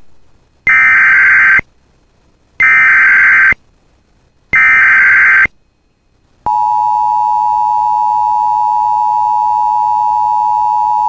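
Emergency Alert System header: three one-second bursts of buzzing digital data tones with short gaps between them, then a loud, steady attention tone starting about six and a half seconds in.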